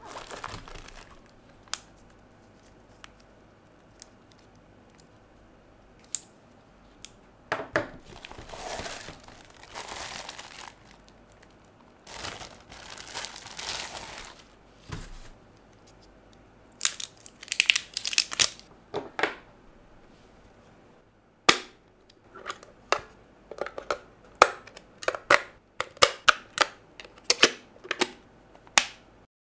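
Clear plastic bag crinkling as a blood pressure cuff is pulled out of it. In the second half, a run of sharp clicks and knocks as the plastic monitor unit and its case are handled.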